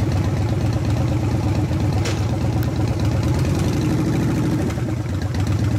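2014 Honda VFR800's V4 engine idling steadily through a WYVERN aftermarket muffler.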